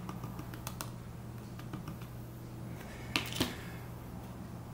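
Small metal blade tapping and scraping on freshly laid plastic filament, a scatter of light clicks, with a louder scrape and knock a little past three seconds in.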